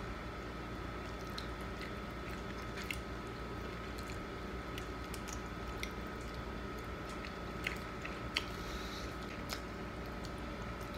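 Close-up chewing and the small crackles of whole shrimp being peeled by hand, heard as a few faint scattered clicks over a steady low hum with a thin whine.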